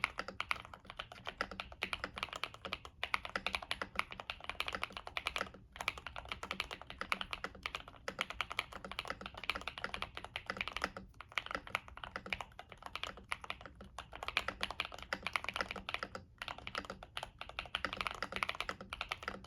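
Continuous fast typing on a Kbd67 Lite mechanical keyboard with stock Gateron CM switches, an FR4 plate, tape mod and case dampening, and Cherry-profile keycaps. The keystrokes run in quick dense runs with short pauses every few seconds.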